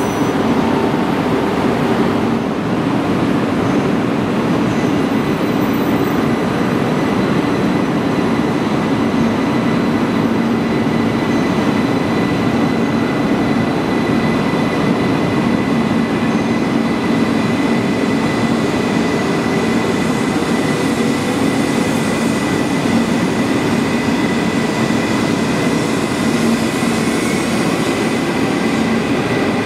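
E2 series Shinkansen train running slowly along a station platform, coupled to an E3 series set. Its electric drive gives a steady hum and whine over the rolling noise of the wheels.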